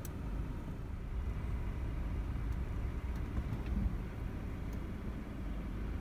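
Low, steady rumble of a vehicle engine running, with a few faint light clicks.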